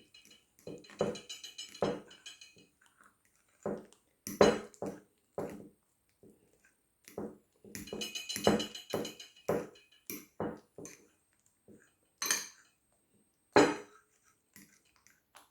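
A fork clinking and scraping against a ceramic dish while stirring scrambled eggs: irregular knocks, some with a short ringing tone.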